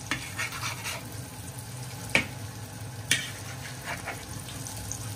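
Chive pockets sizzling steadily as they pan-fry in oil in a large wok, with two sharp clicks about two and three seconds in.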